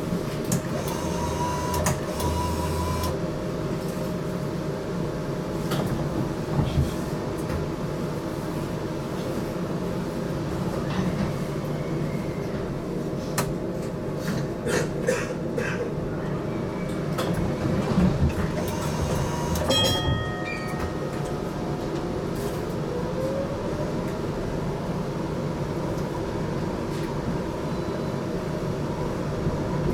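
Inside a GTL8 tram: a steady hum and rumble with scattered clicks and knocks, a brief tone about twenty seconds in, and a slow rising whine just after it.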